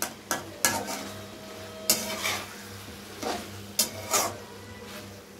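A metal spatula stirring a thick potato and flat-bean curry in a metal karahi. It makes irregular scrapes and clinks against the pan, about eight in all, some sharp and short and a few drawn out.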